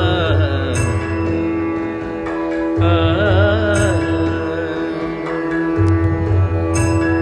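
Background music in an Indian classical style, with a steady drone under a wavering melodic line.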